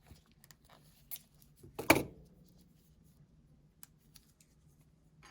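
Small handling noises of repair tools and phone parts: scattered light ticks, with one sharp click about two seconds in.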